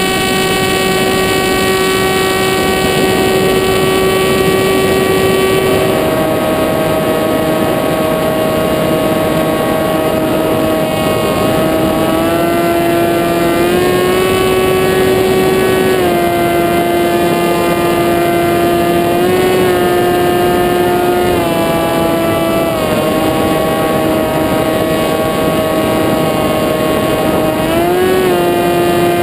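Motor and propeller of the camera aircraft running steadily: a whining tone over wind rush. Its pitch drops about six seconds in, then steps up and down several times with throttle changes, and rises briefly near the end.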